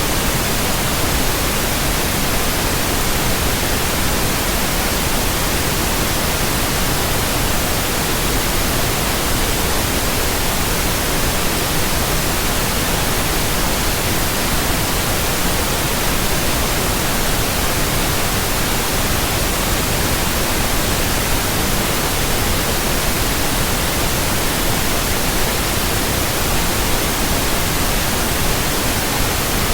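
Steady, unchanging white noise: an even, full-range hiss with no changes or other sounds.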